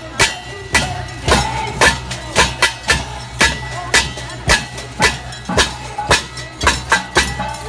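Loud rhythmic beating from a protest crowd's drums and noisemakers, about two to three sharp strikes a second, over a steady low hum.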